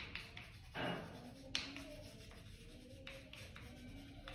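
Chalk scratching on a roll-up blackboard as a word is written, faint, with a couple of sharper taps about a second and a second and a half in.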